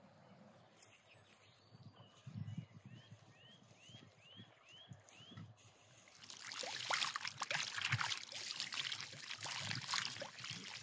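Water from a garden hose splashing onto raw meat in an enamel bowl as hands rinse it, starting about six seconds in and the loudest sound. Before it, a bird repeats a short rising call several times.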